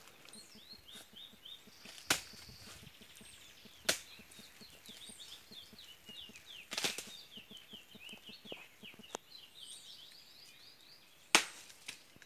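Small birds chirping faintly in quick, repeated short calls, broken by four sharp knocks, the loudest one near the end.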